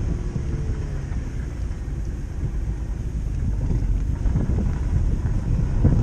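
BMW E36 with a stroked M50B30 straight-six pulling away slowly, its engine and exhaust rumble mixed with wind buffeting on a microphone mounted outside on the car's flank. It grows a little louder near the end.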